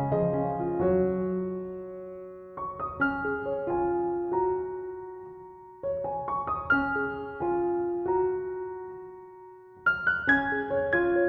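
Background piano music: slow phrases of chords and single notes that ring out and fade, with a new phrase starting roughly every three seconds.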